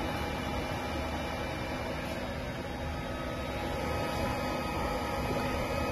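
BGA rework station's hot-air heaters and fans blowing steadily with a faint hum while it runs its heating profile to melt the solder under a chip.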